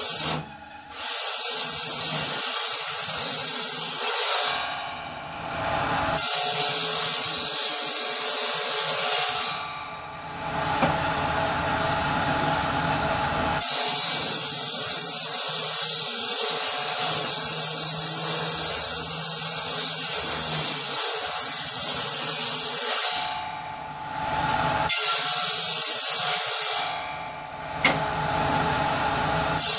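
Power saw cutting wood for kindling, running through several cuts of a few seconds each with short dips in level between them.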